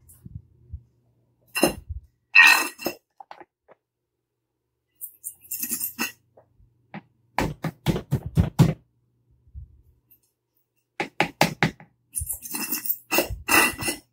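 Plastic dish-soap bottle squeezed upside down into the neck of a glass bottle: repeated bursts of squirting, crackling and light clicks against the glass, the busiest near the end.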